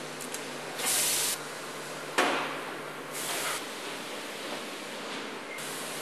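Factory machinery: three short hissing bursts over a steady low hum. The loudest, about two seconds in, starts sharply and fades away.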